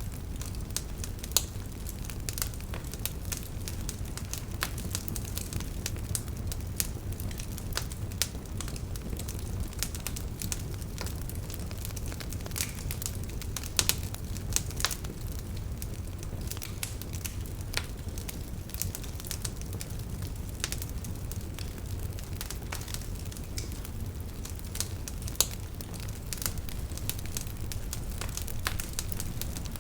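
Campfire burning with a steady low rumble of flames and frequent irregular crackles and pops, a few of them sharper and louder.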